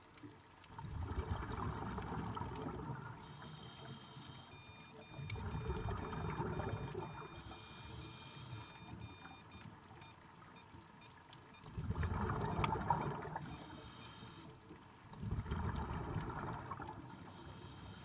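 Scuba diver breathing through a regulator underwater: four bursts of exhaled bubbles rumbling and gurgling, each two to three seconds long, with quieter stretches between them.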